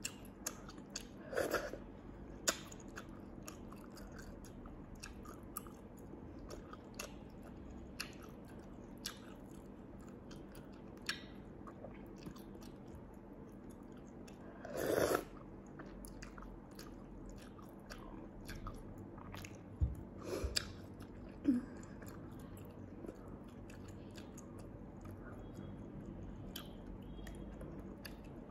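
Close-up eating sounds of a person chewing small sea snails and sucking them from their shells, with many small wet clicks and a few louder slurps about a second and a half in, near the middle, and around twenty seconds in.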